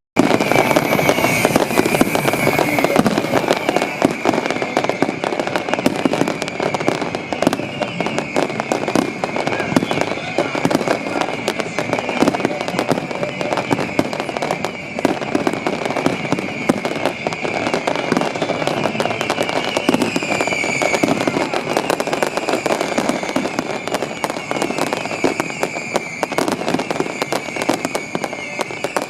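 Fireworks finale: a dense, unbroken barrage of exploding shells, bangs and crackle, with a short whistle about twenty seconds in.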